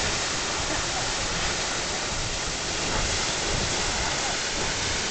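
Grand Geyser erupting: a steady rush of water and spray with no letup.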